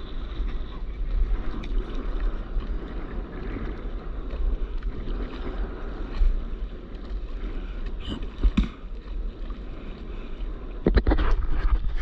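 Wind buffeting the microphone with water sloshing and lapping close to the surface, and a few sharper splashes or knocks about eight seconds in and again near the end.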